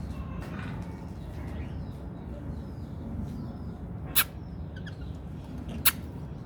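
Lovebird giving two short, shrill chirps about a second and a half apart, with a few faint little chirps between them, over a steady low background hum.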